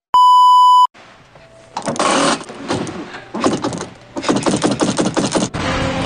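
A loud, steady test-tone beep lasting under a second, then amusement-ride machinery clattering with many rapid clicks and knocks as the ride starts; music cuts in abruptly near the end.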